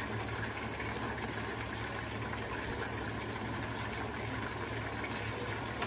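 Chicken pieces frying in hot oil in a pan, a steady sizzle, with a low steady hum underneath.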